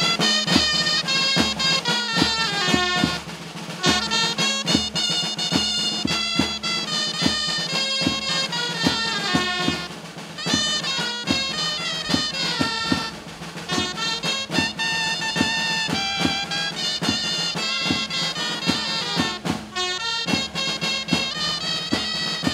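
Dulzainas, Castilian double-reed shawms, playing a jota melody over a steady drum beat.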